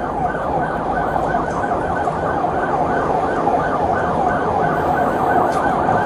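Police siren in a fast yelp, its pitch sweeping up and down about five times a second, heard from inside a moving patrol car with road and engine rumble beneath.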